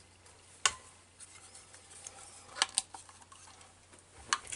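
Handheld paper punch clicking as it cuts the end of a paper tab: one sharp click about two-thirds of a second in, then a few lighter clicks from the paper and tools being handled.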